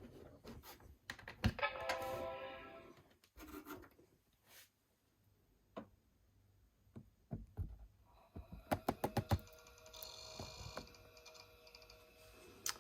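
Macintosh PowerBook 150 booting. Its startup chime sounds about two seconds in and fades. Then come scattered clicks, a quick run of clicks around nine seconds, and a faint steady whine over the last few seconds: the computer's weird startup noises, typical of its hard drive spinning up and seeking.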